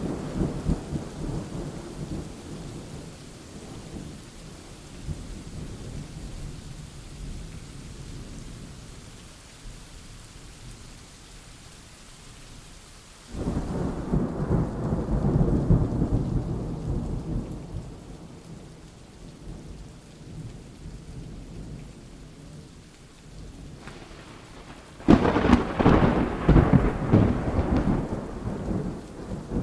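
Thunderstorm: steady rain with rolling thunder. A rumble fades at the start, a sudden low peal comes about halfway through and dies away over several seconds, and a louder, sharper crackling peal breaks near the end.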